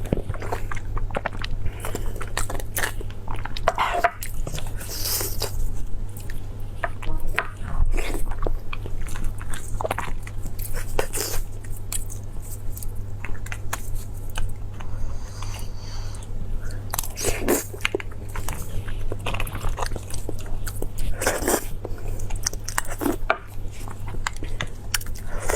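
Close-miked chewing and biting of fatty meat: irregular mouth clicks and smacks, over a steady low hum.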